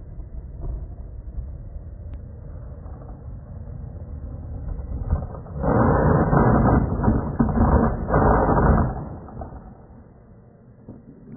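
Skateboard wheels rolling and scraping on hard ground: a low rumble that grows loud and harsh for about three seconds midway, then fades away.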